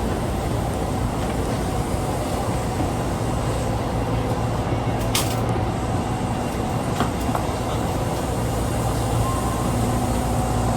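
Osaka Metro subway train running, heard from inside the car: a steady rumble with a low hum, and a sharp click about five seconds in.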